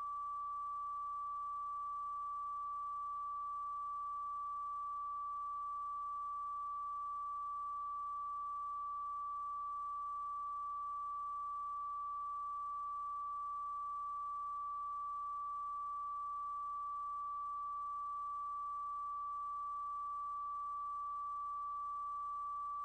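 A single steady electronic sine tone, pitched like a test tone and held unbroken at an even level.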